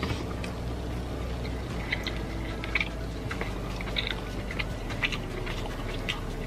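Close-up chewing of lobster meat, with wet mouth smacks and clicks about once a second.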